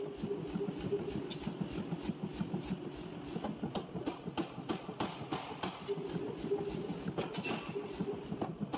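Large forging press running: a fast, even clatter over a low hum that fades out for a while in the middle and comes back near the end.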